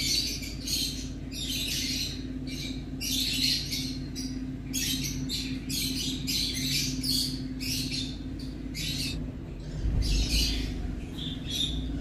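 Birds chirping in a quick, uneven series of short, shrill bursts over the steady hum of a small car's engine idling warm, heard from inside the cabin. A deeper rumble swells in near the end.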